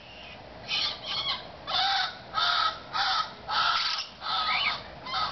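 A young yellow-naped amazon parrot giving a run of harsh, raspy calls, about one every half second, starting just under a second in.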